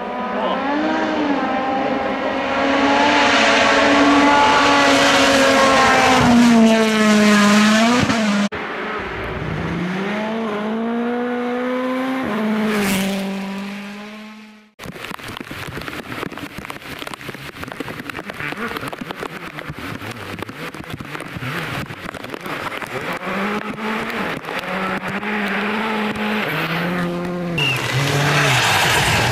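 Rally cars at full throttle on a gravel stage across several clips. An M-Sport Ford Rally1 car's engine climbs in pitch through repeated upshifts and drops away as it passes, and another pass follows. After a cut comes a dense crackling noise, then another car revving hard with quick gear changes near the end.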